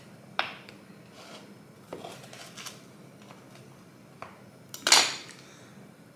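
A kitchen knife cutting brownies on a wooden cutting board: a few light knocks of the blade on the board, then a louder, short scrape near the end.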